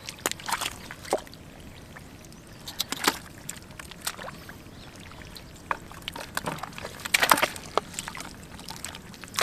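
Hands splashing and groping in shallow muddy water: a scatter of short, irregular splashes, busier about three seconds in and again around seven seconds.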